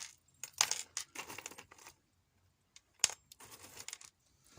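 Small pieces of metal electronic scrap (relay parts, connectors and pins) clinking and rattling as they are handled. Several short rattles come first, then a sharp click about three seconds in and one more rattle.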